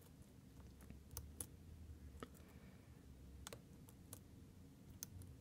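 Faint, scattered clicks of a lock pick and tension wrench working the pin stacks of an ASSA Twin V-10 lock cylinder, about half a dozen at uneven intervals.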